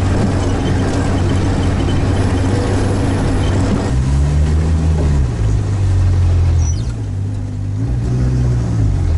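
Sherp all-terrain vehicle's engine running under way. It holds a steady pitch, then from about four seconds in it revs up and eases off several times.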